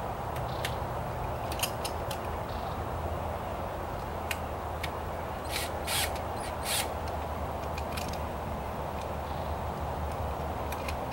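Cordless drill/driver driving screws to fasten a navigation light fixture to a boat's hull, in a few short bursts around the middle, among small clicks and handling knocks.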